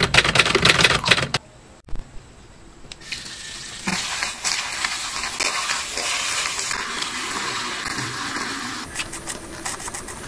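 A loud scratchy rattle in the first second or so. Then, from about three seconds in, a handheld battery milk frother whirs steadily as it whisks coffee liquid in a glass, and stops about a second before the end.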